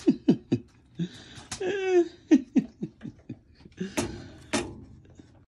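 A person laughing in quick, short bursts, with a longer wavering laugh about two seconds in. A few sharp clicks come from the steel safe's door hardware, two of them near the end.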